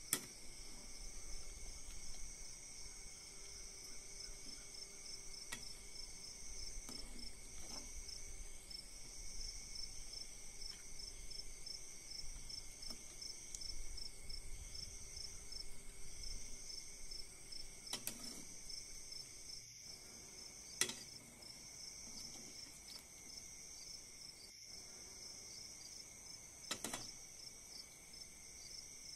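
Crickets chirping steadily in the background, with a few sharp clinks of a metal ladle against an aluminium cooking pot as it stirs, the loudest near the start and about two-thirds of the way in.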